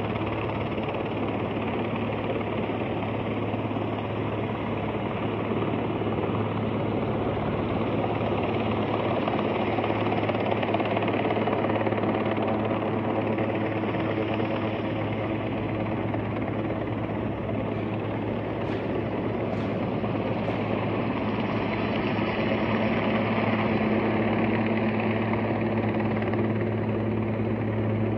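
Helicopter hovering with an underslung load, its rotors and turbine engine making a steady drone with a low hum.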